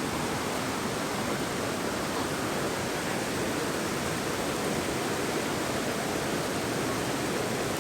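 Steady rush of fast-flowing river water tumbling over the rocks and cascades of a mountain gorge, an even, unbroken noise.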